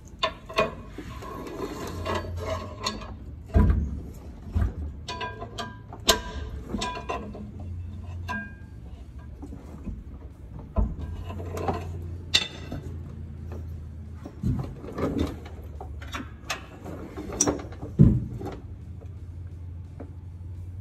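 Irregular metal clanks, knocks and clicks from a heavy bus transmission shifting on a wheeled transmission jack as it is worked loose and lowered, over a low hum that comes and goes.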